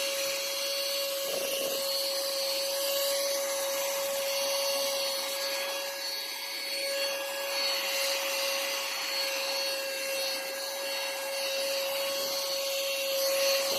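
Portable cordless vacuum cleaner running steadily: a constant motor whine over a hiss of rushing air.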